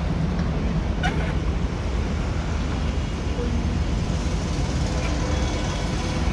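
Steady road traffic noise, a constant low rumble with no clear single event.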